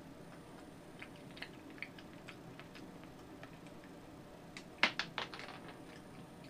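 Monkey eating nuts: a run of small, crisp crunching clicks, with a louder cluster of clicks about five seconds in.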